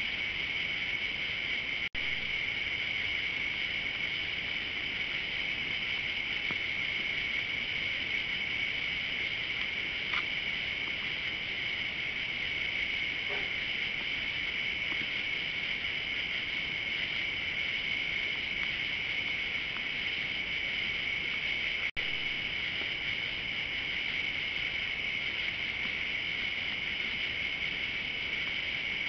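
Steady chorus of night insects, crickets and katydids, trilling without a break in two high pitches. It drops out for an instant twice, about two seconds in and again around twenty-two seconds.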